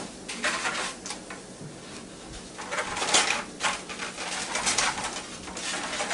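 A thin film of leftover bacon grease sizzling in a hot, nearly empty Copper Chef square pan, coming in irregular short hissy spurts.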